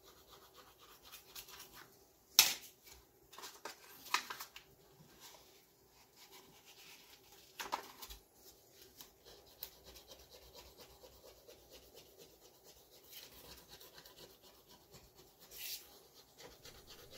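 Paper backing being peeled off an adhesive magnetic sheet while gloved hands lay and press the sheet onto an aluminium printer bed. Faint rustling and rubbing, with a sharp crackle of the paper about two seconds in and a few softer crackles and a rustle later.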